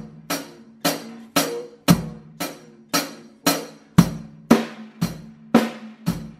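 Tama drum kit with Meinl cymbals playing a basic rock beat at a steady, slow tempo: hi-hat, bass drum and snare, about two hits a second, with the drums ringing between strokes.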